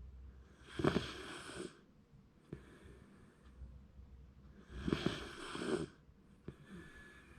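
Shiba Inu snoring in its sleep: two loud snores about four seconds apart, each lasting about a second, with quieter breaths between.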